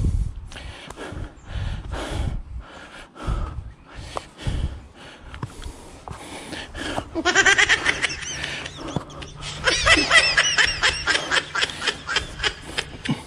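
A hiker breathing hard with scuffing steps while scrambling up a steep, root-covered trail, then a high-pitched 'ahihihi' giggle about seven seconds in and again, longer, near ten seconds.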